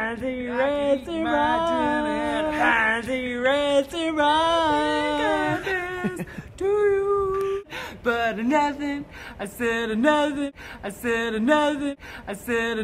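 A woman's voice singing a slow melody solo and unaccompanied, gliding between long held notes. In the second half, sharp clicks or taps run under the voice.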